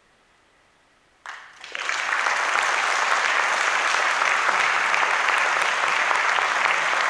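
A hushed pause after the final note. About a second in, an audience starts applauding; the applause fills out within a second and carries on loud and steady.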